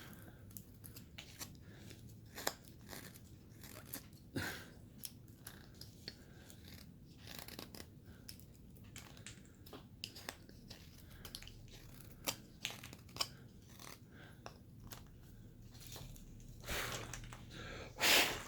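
Hand carving tool cutting and shaving basswood: quiet, irregular crisp cuts and scrapes, with a few louder strokes about four seconds in and near the end.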